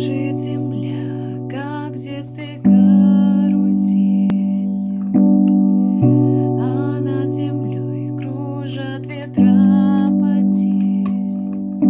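Keyboard instrumental: sustained chords struck every few seconds and fading between strikes, with a wavering melody line above them.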